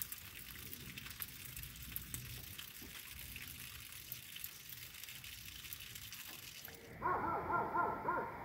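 Steady outdoor hiss with faint ticks. About seven seconds in, a pack of coyotes starts yipping and howling in wavering, overlapping calls.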